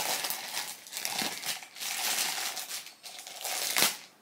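Clear plastic packaging bag crinkling and rustling unevenly as plastic beakers are unwrapped, with one sharper, louder rustle near the end.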